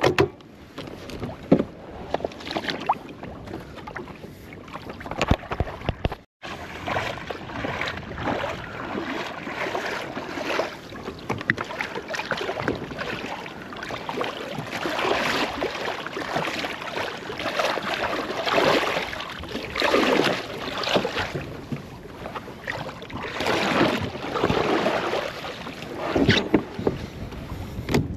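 Water sloshing and splashing around a kayak on the move, in irregular swishes. The sound drops out briefly about six seconds in.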